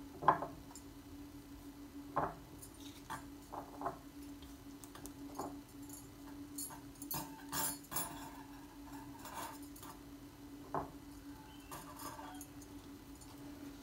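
Scattered light taps and clicks of fingers pressing and folding a thin samosa pastry sheet on a granite countertop, over a steady low hum.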